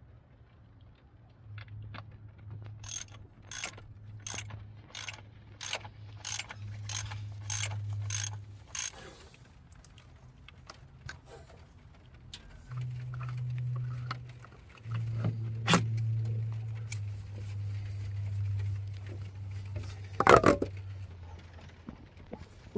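Socket ratchet wrench clicking in a steady run of about ten strokes as it is worked back and forth, followed later by a single loud metallic clatter near the end.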